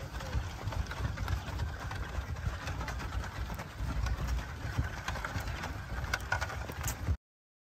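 Wooden water-buffalo cart rolling over a dirt track: a steady low rumble with scattered light knocks from the wheels and frame. The sound cuts off suddenly near the end.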